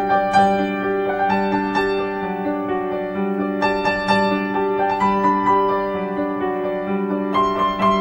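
Background piano music: a gentle, slow melody of sustained notes.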